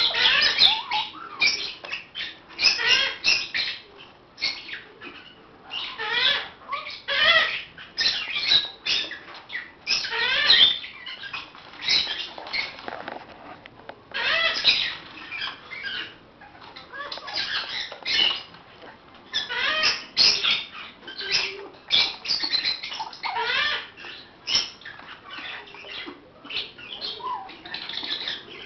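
Baby African grey parrots squawking and chattering: short calls that bend up and down in pitch, coming one after another in quick bursts with brief pauses between.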